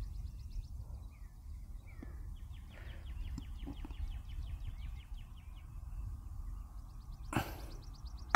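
A golf club strikes the ball in a short chip shot with a single sharp click about seven seconds in. Before it, a bird trills in rapid runs of high ticks, with a few short chirps, over a low background rumble.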